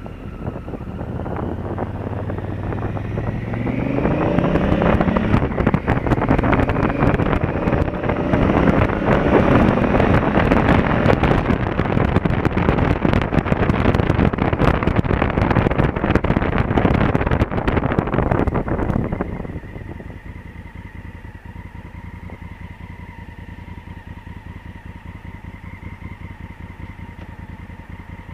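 Honda Africa Twin CRF1000L's parallel-twin engine accelerating, its pitch rising, with wind noise building loud over the microphone while riding. About two-thirds of the way through, the noise drops suddenly and the engine settles to a steady idle as the bike stops.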